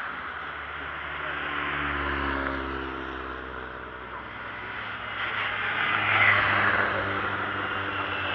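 Hill-climb cars' engines as they pass through a hairpin one after another. One engine note swells and fades about two seconds in, then a louder car approaches from about five seconds in and is loudest a second later.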